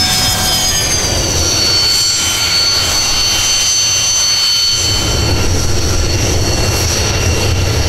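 Su-25 attack jet's turbojet engines whining and rumbling after landing. The high whine falls in pitch over the first few seconds, then holds steady over a low rumble.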